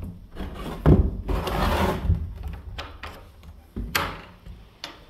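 Knocks and scraping on wood: several sharp knocks, the loudest about a second in and another near four seconds, with a longer rubbing scrape between them.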